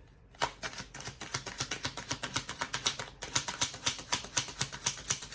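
Tarot deck being shuffled: rapid, even flicking clicks of cards, several a second, with a brief pause about three seconds in.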